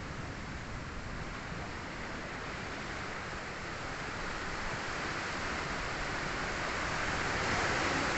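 Sea surf: waves washing onto the shore, a steady rush of noise that swells louder through the second half.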